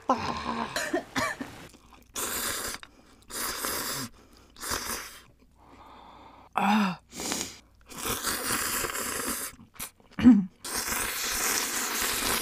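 Close-miked slurping of spicy instant noodles and broth, broken by sharp hissing breaths and two short voiced gasps as the noodles' heat burns.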